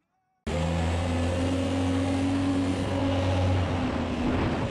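Jetstream Headwater mini jet boat's 1053cc Yamaha four-stroke engine running steadily under way, heard from on board over the rush of water. It cuts in suddenly about half a second in.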